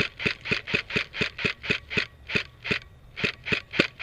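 Running footsteps crunching through dry leaves and brush, a steady rhythm of about four steps a second with a short break near the end.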